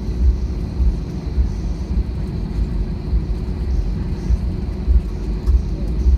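Airbus A320 jet engines running, a loud, steady, deep rumble with a faint hum riding over it.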